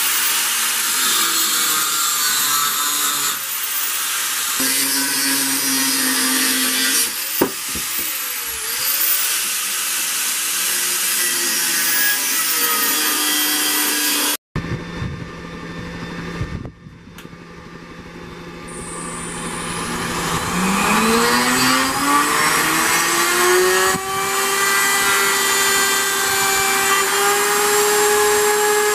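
Angle grinder with a cut-off wheel cutting steel plate, its pitch wavering and dipping as it bites, until it stops abruptly about halfway through. A die grinder then spins up with a rising whine and runs steadily at high speed, grinding the steel.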